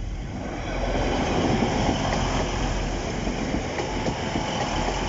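Class 185 diesel multiple unit passing on the line, its rush of wheel and engine noise rising about a second in and then holding steady.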